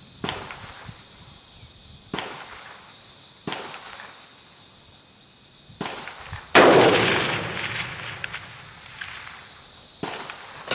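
A 1938 Persian Mauser bolt-action rifle in 7.92×57mm fires one loud shot a little past the middle, its report trailing away over about a second and a half. Several fainter sharp cracks, shots from other rifles on the range, come before and after it.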